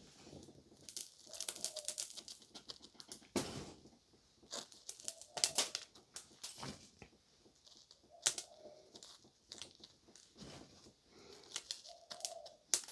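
Intermittent crinkling, rustling and light clicks from hands handling decorating materials and toy pieces at the work table.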